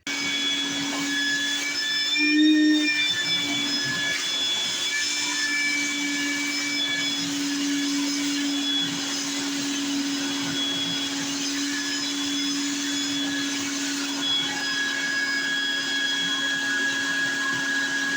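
A mini wet/dry vac switches on and runs with a steady motor whine and rushing air. Its pitch and loudness rise briefly about two and a half seconds in.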